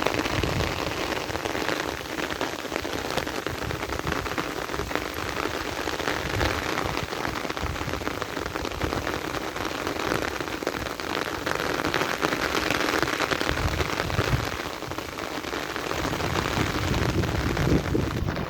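Heavy rain pouring and pattering on a surface, with a low rumble of thunder underneath.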